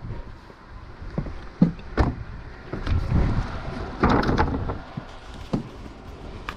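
A few sharp knocks and thumps among rustling and a low rumble, the loudest knock about two seconds in, as of someone moving about and handling things aboard a sailboat.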